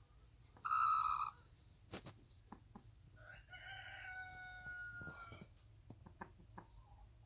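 Chicken calls: a short, loud squawk about a second in, then a longer, quieter drawn-out call lasting about two seconds, its pitch falling slightly. A few soft ticks fall between them.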